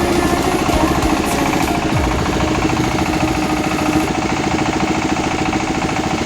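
Rice milling machine running steadily, a loud continuous mechanical hum with a rapid, even pulsing rattle.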